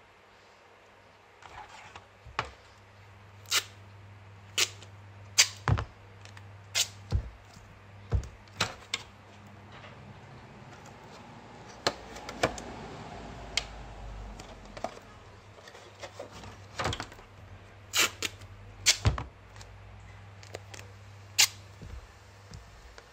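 Thin clear plastic sheet being flexed and folded by hand, giving an irregular series of sharp clicks and crackles with a softer rustle partway through. A steady low hum runs underneath.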